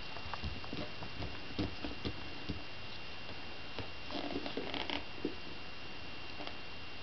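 Soft scattered clicks and rustles from small hands fiddling with the laces of suede shoes, busier about four to five seconds in, over a faint steady high-pitched whine and room hiss.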